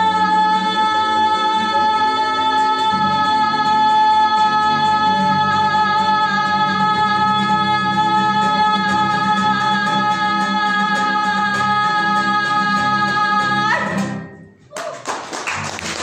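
A woman's voice holds one long sustained note over a strummed acoustic guitar at the close of a song. The note bends up slightly and cuts off about fourteen seconds in. After a brief hush, audience clapping starts near the end.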